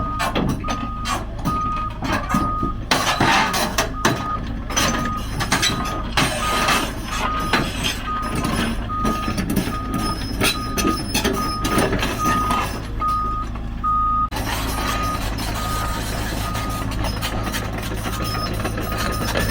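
Heavy equipment's reversing alarm beeping steadily, about one and a half beeps a second, over a running diesel engine, with short metallic clanks and rattles as the machine moves on the truck.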